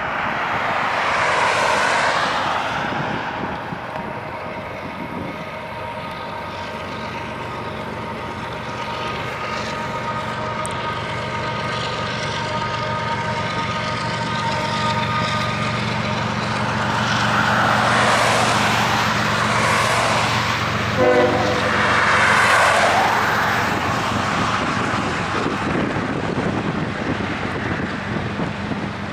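Diesel locomotive air horn sounding as the CSX GE ES44AH locomotives approach: a chord held for many seconds, then several more blasts in the second half. Underneath is the steady low rumble of the diesel engines.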